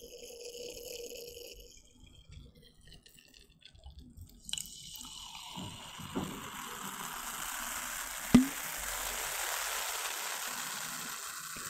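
Cola poured from a plastic bottle into a mug close to the microphone, starting about four and a half seconds in, then the carbonation fizzing and crackling in the mug. A sharp tap a little past the middle of the pour.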